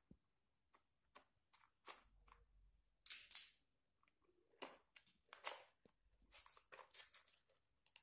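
Small cardboard box being slit with a knife and its flaps pulled open by hand: faint scraping, tearing and rustling of paperboard with scattered light clicks, the loudest scrape about three seconds in.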